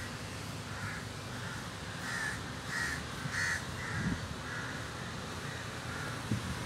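A crow cawing: a run of short caws a little over one a second, loudest in the middle of the run.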